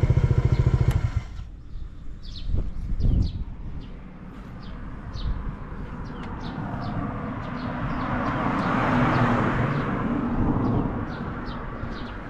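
Honda PCX125 scooter's single-cylinder four-stroke engine idling through an aftermarket full exhaust, shut off about a second in, followed by two dull clunks. A passing vehicle then swells and fades while birds chirp.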